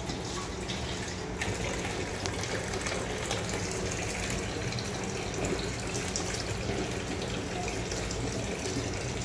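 Meat broth (yakhni) bubbling in an aluminium pot on the stove: a steady watery hiss.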